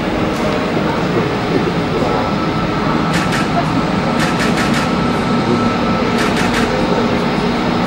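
Boeing 737-8 MAX's CFM LEAP-1B jet engines running at taxi power: a steady, dense rush of jet noise with a thin whine held through the middle, and a few light clicks.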